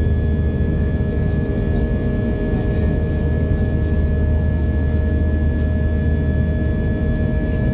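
Airbus A320 jet engines and airflow heard inside the cabin in flight: a steady deep rumble with a constant high whine and a lower hum over it.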